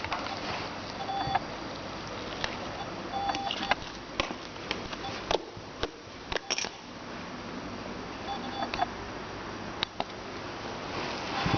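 Slime being squeezed and poked, with scattered sharp clicks and pops over a steady hiss. A few short electronic beeps sound now and then.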